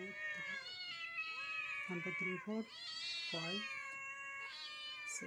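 Several kittens meowing at once, their high calls overlapping almost without a break, with two short lower calls near the middle.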